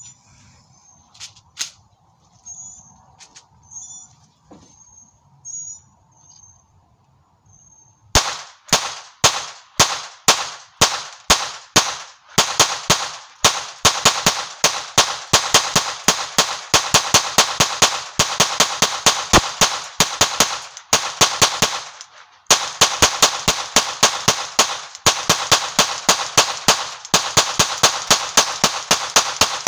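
Calico M100P .22 LR semi-automatic pistol firing a long string of shots. The first shots come about eight seconds in and are spaced, then the fire runs quickly at about four shots a second, with one short break about three-quarters through. Before the shooting there are only a few faint clicks and short high chirps.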